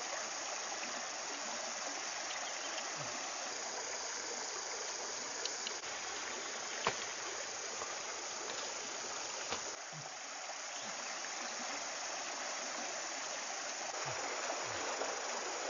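Shallow stream running over rocks, a steady rush of water, with a few light clicks on top.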